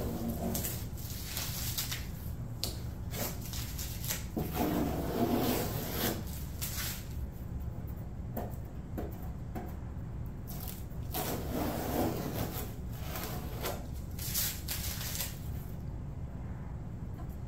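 Blue painter's tape being peeled off a car hood and crumpled into a wad in the hand, crinkling on and off with small clicks, over a steady low hum.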